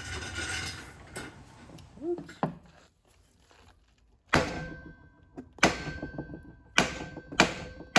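Metal struck sharply four times in the second half, each blow leaving a clear ringing tone, like a hammer on metal.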